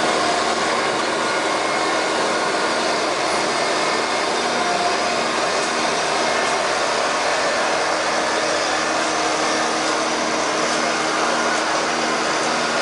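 Machinery running steadily: a constant loud whirring noise with a few faint steady hums, unchanging throughout.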